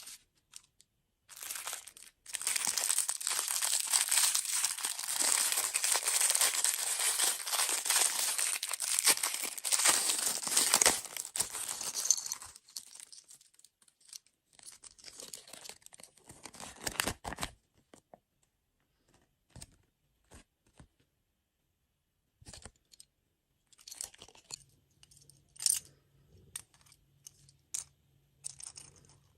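Plastic packaging being torn open and crinkled, a dense crackling for the first dozen seconds that turns intermittent and stops. After that come scattered small clicks and taps.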